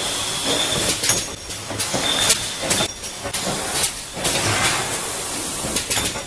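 LH ZSR660UV six-colour turntable screen printing machine running: repeated bursts of compressed-air hiss from its pneumatic cylinders, with sharp clacks as the stations index and the screens and squeegees move.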